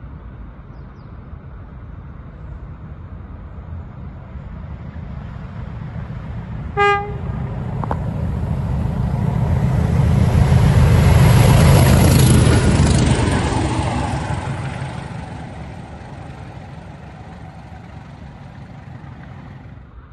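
Pair of English Electric Class 20 diesel locomotives running through at speed: a short horn toot about seven seconds in, then the engines' rumble swells to a peak as they go by and fades away. A thin high whistle rides over the engine sound while they pass.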